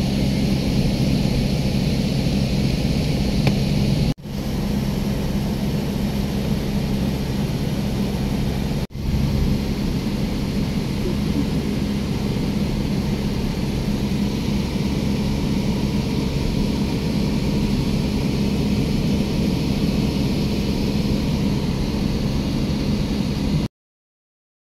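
Steady engine and road noise inside a moving car's cabin, a constant low hum. It cuts out for an instant twice and stops suddenly near the end.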